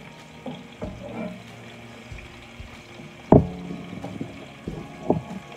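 Chopped onions frying in oil in a nonstick pan, stirred with a wooden spoon that knocks and scrapes against the pan several times, the loudest knock about three seconds in.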